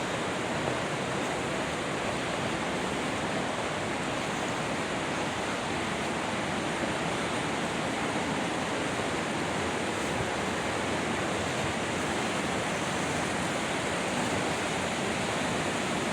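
Mountain stream rushing and splashing over rocks at its spring, a steady, unbroken roar of water.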